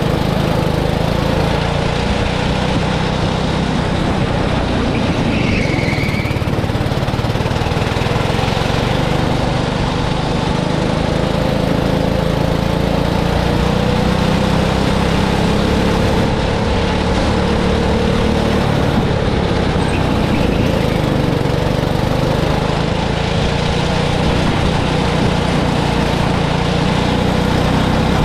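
Go-kart engine running continuously, its pitch wavering gently up and down, over a broad rushing rumble. A brief higher-pitched squeal about six seconds in.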